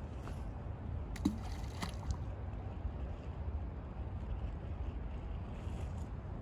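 Water sloshing and lapping over a steady low rumble, with one short sharp plop a little over a second in and a fainter click about half a second after it.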